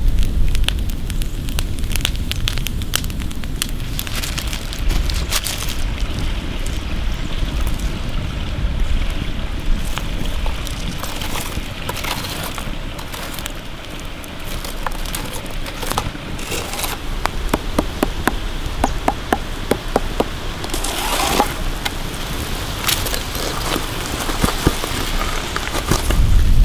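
Wood campfire burning, with steady crackling and many small sharp pops.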